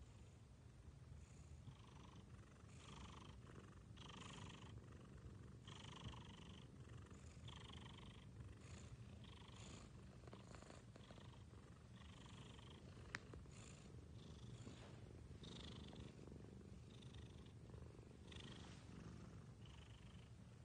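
A resting cat purring softly: a steady low rumble that swells with each breath, about once a second. There is a single small click about thirteen seconds in.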